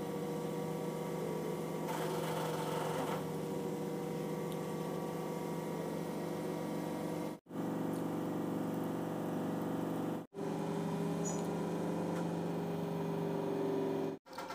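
Steady machine hum with a low drone and several steady overtones, breaking off briefly three times: about seven and a half seconds in, at ten seconds, and near the end.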